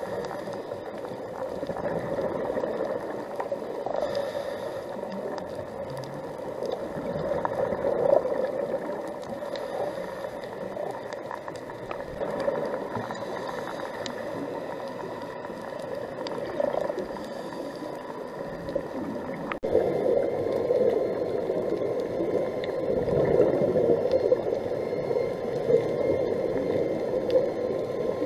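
Muffled underwater noise picked up through a camera's waterproof housing, a steady water rush with some bubbling. About two-thirds of the way through it changes abruptly and grows louder.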